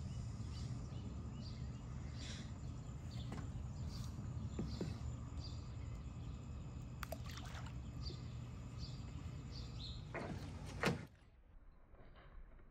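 Outdoor ambience by the water: a steady low hum and hiss with a high chirp repeating about every second. Near the end there is a brief louder noise, and then the sound drops to a quieter level.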